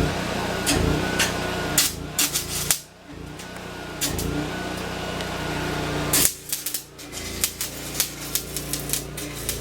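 Stick welding arc crackling and sputtering as a 7018 rod burns, over a steady low hum. The arc drops out about three seconds in and again just after six seconds, then picks up again, typical of a rod that is a little damp and hard to keep burning.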